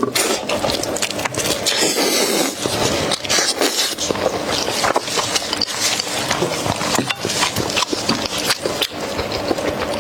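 Close-up chewing and mouth sounds of someone eating braised lamb chops: a dense, irregular run of clicks and smacks.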